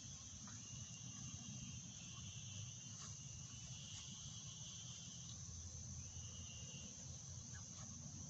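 Faint, steady high-pitched chorus of insects trilling, with shorter buzzing trills coming and going over it, over a low rumble.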